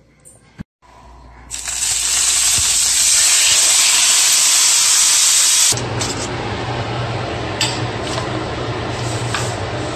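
A large piece of seasoned meat searing in a hot frying pan: a loud, even sizzle that starts suddenly about a second and a half in and stops abruptly past the middle. It gives way to a duller steady hiss with a low hum and a few clicks.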